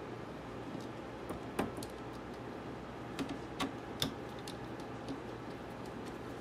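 Irregular light clicks and ticks of a small screwdriver turning screws into a MacBook Pro laptop's logic board, with a few louder clicks about a second and a half in and three to four seconds in, over a steady low room hum.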